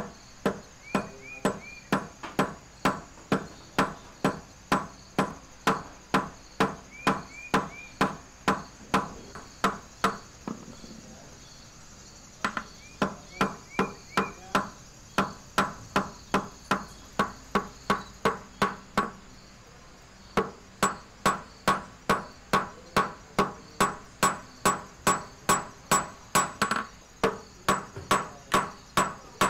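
A steel hammer strikes a silver wire on a small steel anvil block, flattening it, in a steady run of metallic blows about two a second, each with a short ring. The blows stop twice for a second or two and then resume, a little faster near the end.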